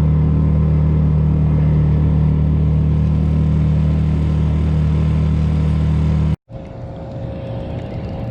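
Boat engine running steadily under way, loud with a deep, even hum. About six seconds in it cuts off abruptly and gives way to a quieter, steady motor hum with a faint thin whine.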